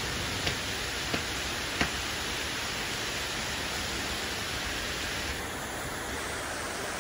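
Heavy downpour: a steady hiss of rain pouring onto roofs and the street, with three sharp ticks in the first two seconds.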